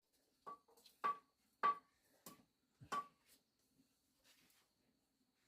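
A run of about five sharp knocks, one roughly every 0.6 s, each with a brief ring, followed by a few fainter taps.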